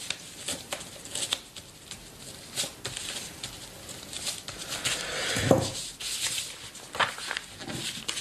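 Pen nib scratching across paper in short, irregular strokes as a letter is written in ink. There is a brief low sound about five and a half seconds in.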